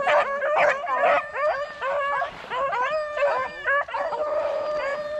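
A pack of rabbit-hunting dogs baying together in full cry, several voices overlapping: the sound of hounds running a rabbit. Near the end one dog holds a long drawn-out howl.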